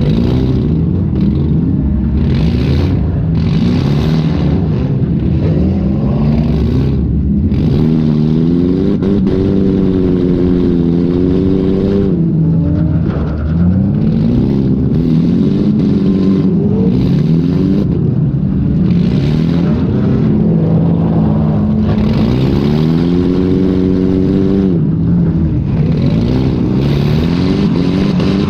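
Demolition derby car's engine heard from onboard, revving up and down over and over as it accelerates and backs off, with frequent short bursts of harsh noise.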